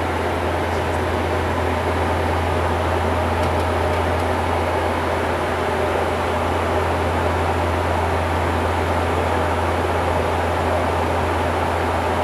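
Steady cockpit noise of a Bombardier Q400 turboprop airliner in cruise: the propellers' deep, even hum under a constant rushing hiss.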